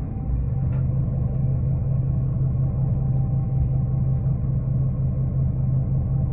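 A 2005 New Flyer D40LF diesel city bus engine running, heard from inside the bus as a steady low drone and rumble.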